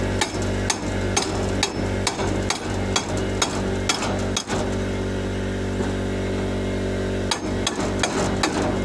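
Sharp metallic taps, about two a second, over a steady low hum; the taps stop for about three seconds midway, then start again.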